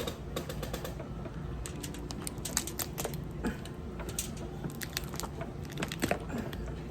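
Eating sounds from a seafood boil: chewing and mouth smacking, with many quick sharp clicks.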